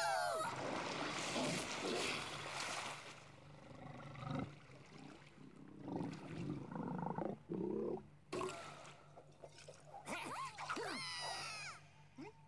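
Cartoon sound effects and wordless character noises: a rushing, scraping noise for the first few seconds, growls in the middle, and squeaky cries that glide up and down in pitch near the end.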